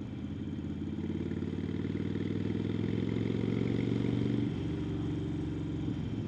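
Harley-Davidson Sportster 1200 Nightster's air-cooled V-twin running under way, heard from the saddle, getting gradually louder and then dropping back suddenly about four and a half seconds in.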